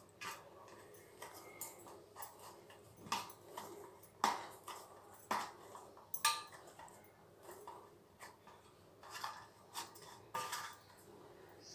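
Hand mixing crumbly rice-flour dough in a stainless-steel plate: faint, irregular light clinks and scrapes against the metal, about one every second.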